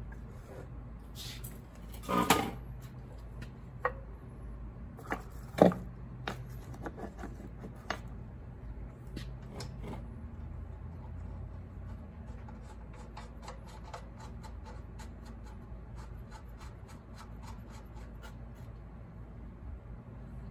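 Hand work on a cut-off saw's metal cutter arm: a few sharp knocks and clunks as parts are handled, then a long run of light, rapid ticking over a steady low hum.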